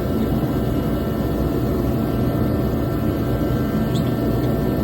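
Steady low rumbling noise with a faint click about four seconds in.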